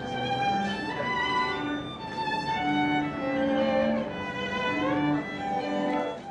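String quartet of violins and cello playing a melody in held, bowed notes, with one note sliding upward about three quarters of the way through.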